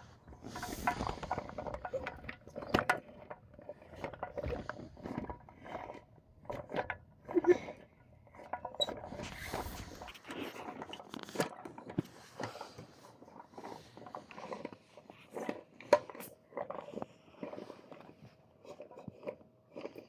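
Hand-cranked NGT boilie grinder crushing hard 18 mm fishing-bait boilies: irregular crunching and cracking clicks as the handle is turned and the blades break the baits into crumb.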